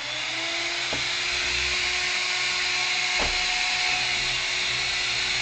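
A small electric motor whirring steadily with a hiss, already up to speed after spinning up just before, with two short clicks about one and three seconds in.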